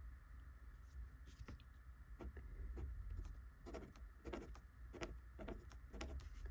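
Fountain pen nib scratching across paper in a series of short, soft writing strokes, sparse at first and more frequent in the second half.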